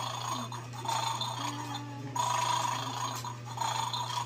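Buzzy electronic tone from the battery-powered Bad Dog game toy's small speaker, coming in repeated bursts about a second long with short gaps between them.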